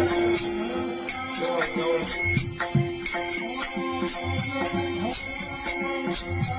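Instrumental music: jingling bells and a steady percussion beat over a held note, leading into a song.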